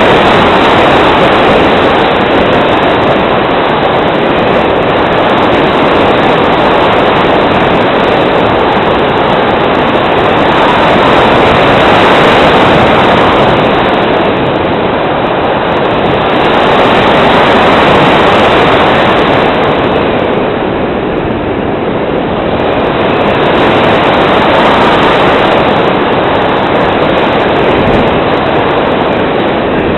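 Steady rushing wind noise from airflow over the microphone of a radio-controlled model aircraft in flight, swelling and easing slowly in level, with no engine or motor tone heard.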